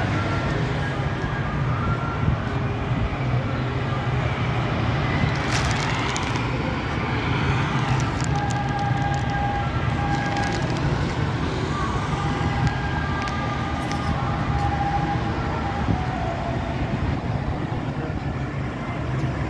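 Steady road traffic noise: cars driving along a multi-lane road below, a continuous rumble of engines and tyres. A faint steady high tone comes and goes in the middle.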